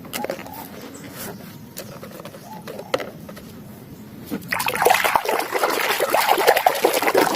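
Water splashing and trickling as a muddy plastic toy is rinsed and cleaned: scattered small knocks and clicks of handling at first, then denser, louder splashing from about four and a half seconds in.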